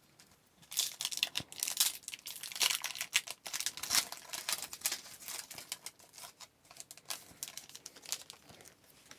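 Foil wrapper of a 2014-15 Upper Deck MVP hockey card pack being torn open and crinkled, a dense run of crackling from about a second in until near the end.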